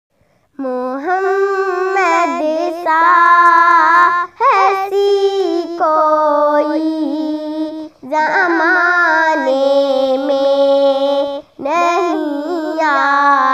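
A girl singing an Urdu naat unaccompanied, in long drawn-out melodic phrases with short breaths between them.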